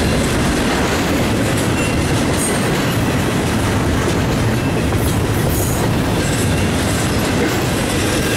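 Double-stack intermodal train's well cars rolling past: a steady rumble of steel wheels on rail with clickety-clack.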